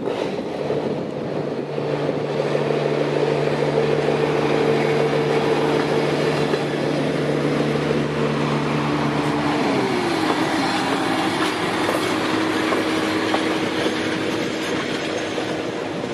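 SNCF X2800 diesel railcar pulling away and passing close by: a steady diesel engine drone that grows louder over the first couple of seconds, its engine note dropping about ten seconds in.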